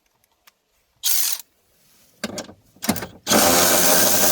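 A power tool working on car bolts: a short burst about a second in, two brief bursts a little later, then a loud steady run starting just after three seconds.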